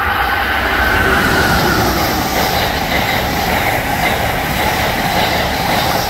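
Amtrak passenger train, led by a Siemens ACS-64 electric locomotive, running through the station at speed: a loud, steady rush of steel wheels on the rails as the stainless-steel passenger cars pass close by.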